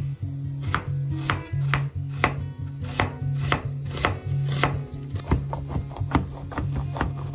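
Kitchen knife chopping onion and bitter melon on a cutting board: sharp knife strokes about twice a second, quicker after about five seconds. Background music with a steady bass line plays underneath.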